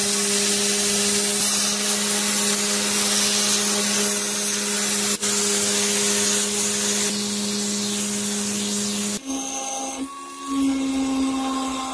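Belt grinder running with a steady motor hum while the abrasive belt grinds a steel scissor blade, a loud hissing rasp over the hum. About nine seconds in the sound changes abruptly to a higher-pitched motor hum with lighter grinding as the small contact wheel works the inside of the handle ring.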